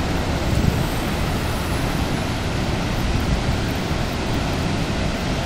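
Roar of Horseshoe Falls at Niagara: a steady, deep rush of falling water with no let-up.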